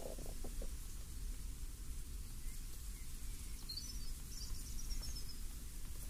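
Steady breeze with a low wind rumble and rustling leaves. A little past the middle, a bird gives a short run of high chirps.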